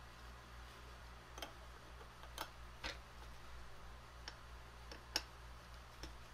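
Hex key turning small 4-40 socket head cap screws into a heat sink, giving about seven scattered light metallic clicks and ticks, the sharpest about five seconds in, over a faint low hum.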